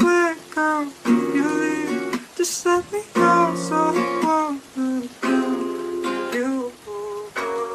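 Song with plucked acoustic guitar and a sung melody line.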